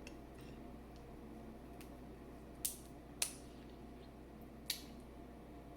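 Crab leg shells being cracked apart by hand: three short, sharp snaps, the second and third about half a second and a second and a half after the first, over faint room tone.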